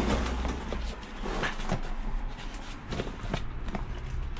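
Hands rummaging through a fabric tool bag: scattered clicks and knocks of tools shifting against each other, with rustling of the bag, over a low steady rumble.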